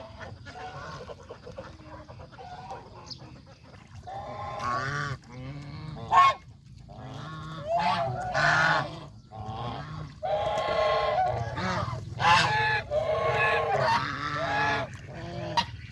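Geese honking and calling over and over in groups of several calls, from about four seconds in onward. Before that there are only faint calls.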